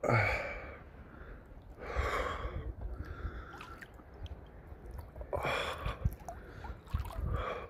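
A swimmer breathing hard in the 12 °C sea, with about four loud gasping breaths roughly every two seconds as he swims.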